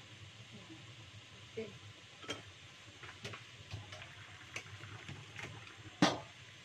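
Scattered light clinks and taps of a plate and utensils being handled on a kitchen counter, over a faint steady hiss, with one louder knock near the end.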